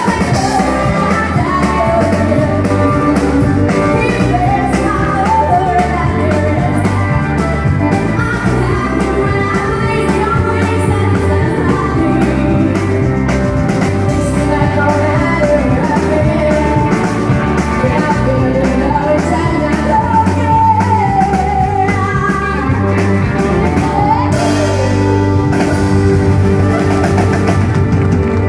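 Live country band music: a woman singing over electric guitar, pedal steel guitar and drum kit, loud and steady throughout.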